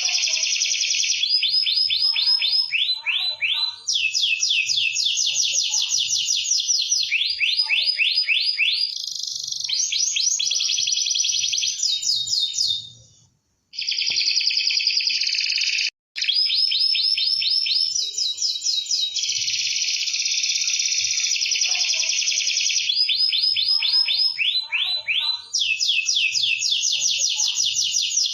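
Domestic canary singing vigorously without pause: long, fast rolling trills and rattling phrases follow one after another. The song breaks off for a moment about halfway through.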